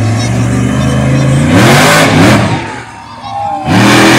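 Monster truck engine running steadily, then revving hard with a rising pitch about a second and a half in. It falls off briefly near three seconds and comes back loud at full throttle near the end as the truck launches over a dirt jump.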